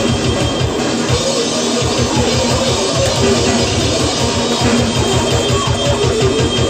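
Loud rock music with fast drumming (quick, even kick-drum beats) and guitar.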